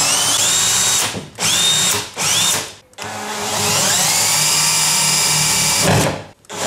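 Cordless drill driving a hole saw into a bath's tap deck. The motor whines up to speed and cuts briefly, stops and restarts in two short bursts, then runs for about three seconds, its pitch rising, before stopping near the end. The on-off trigger work is the slow start that keeps the hole saw from wandering off its mark.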